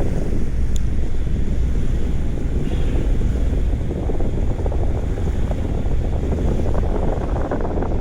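Wind buffeting the microphone as a steady, heavy low rumble, with one faint tick about a second in.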